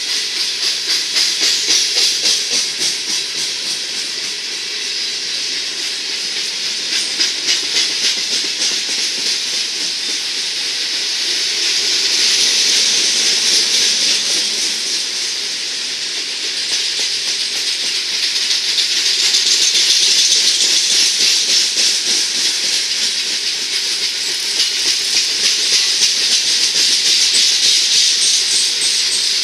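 Coal hopper cars of a freight train rolling past: a steady hiss of steel wheels on rail with a rapid clickety-clack of wheels, the hiss swelling and easing twice.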